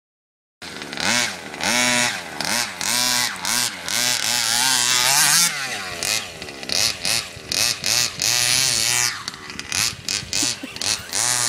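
Small two-stroke petrol engine of a 1/5-scale King Motor Baja RC buggy revving up and down as it is driven. It starts abruptly about half a second in, and in the second half it breaks into short throttle blips about twice a second.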